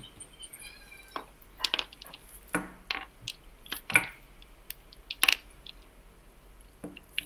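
Scattered clicks, taps and rubbing knocks of headphones and their cable being handled and put on close to a computer microphone, irregular and a few per second at most.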